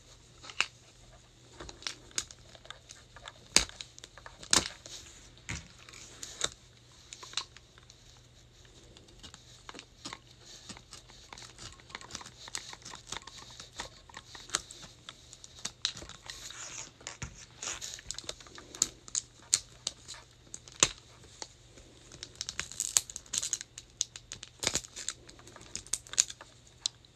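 Plastic wrap on a Mini Brands capsule ball being slit and peeled off: crinkling and tearing with many sharp clicks and taps on the plastic, busier in the second half.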